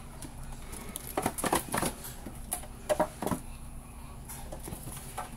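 Metal tins of dried red ginseng root being handled: a series of light clicks and taps, in short clusters about a second in, around three seconds, and once more near the end.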